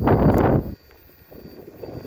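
Gusty wind buffeting the microphone, loud for the first half second or so, then dropping away suddenly and building again near the end.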